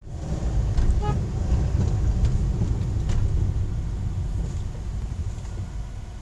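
Strong sandstorm wind buffeting the microphone: a loud, gusty low rumble that eases off toward the end.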